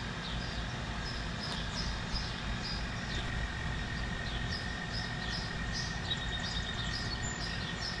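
Steady low hum of outdoor air-conditioning condenser units, with birds chirping repeatedly over it. A faint, steady high whine joins about three seconds in.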